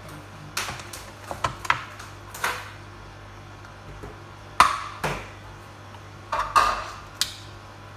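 Dishes and metal kitchen utensils clattering: a series of sharp knocks and clinks with short ringing, coming in small clusters, over a steady low hum.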